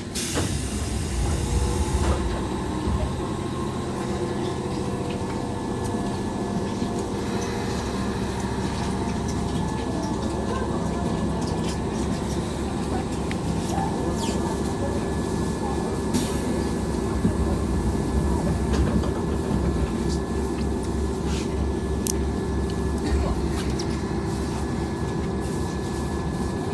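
Commuter train running, heard from inside the carriage: a steady low rumble from the wheels and running gear, with a thin steady whine and a few scattered clicks.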